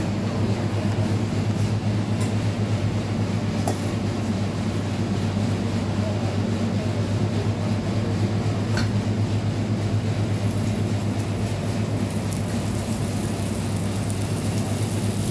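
Steady low hum and rushing noise of running commercial kitchen equipment, like a ventilation fan, with a few faint clicks.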